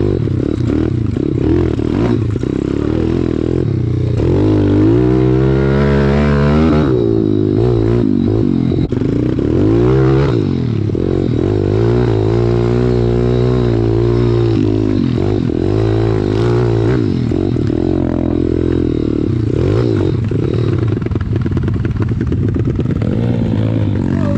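Pit bike's small single-cylinder four-stroke engine heard up close from the bike itself. It revs up and down over and over with the throttle as the bike picks its way along a rough, rooty dirt trail.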